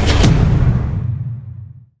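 Intro sound effect: a deep, booming rumble with a short swoosh just after the start, fading out over the last second.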